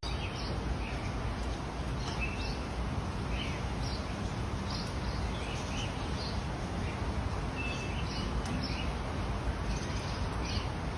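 Steady background noise with faint, short bird chirps scattered through it.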